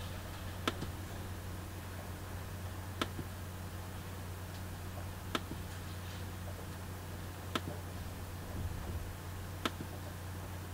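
Five sharp single clicks, about two seconds apart, as the computer's sensor listing is paged down. A steady low hum runs underneath.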